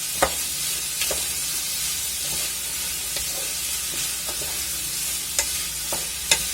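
Pork, onion and carrot sizzling steadily in a hot pan as they are stir-fried, with a few sharp clicks of the stirring utensil against the pan.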